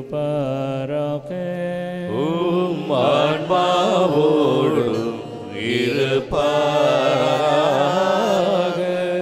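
Chanted Mass dialogue in Tamil: a priest's sung line ends about a second in, then from about two seconds the congregation sings the response with many voices.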